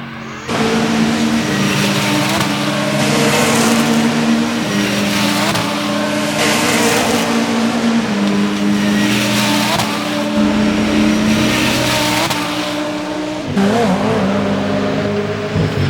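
Audi R8 LMS Ultra race car's V10 engine running hard at high revs, loud from about half a second in, its pitch stepping up and down again and again as it changes gear.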